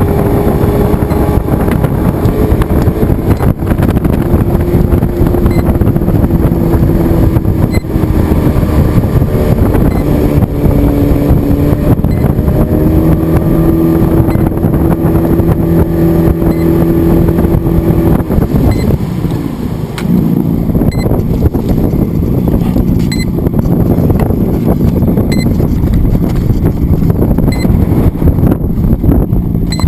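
Radio-controlled FPV plane in flight: steady wind rush with the motor and propeller drone over it. The pitch steps up and down with the throttle, and there is a sliding change around two-thirds of the way through.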